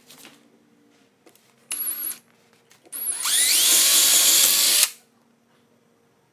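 Cordless power drill boring pilot holes into a wooden door jamb. A short burst comes first, then about two seconds of drilling whose whine rises in pitch as the drill spins up, and it stops abruptly.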